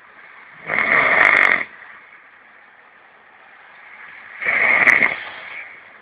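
A person snoring: two loud snores, each about a second long, nearly four seconds apart.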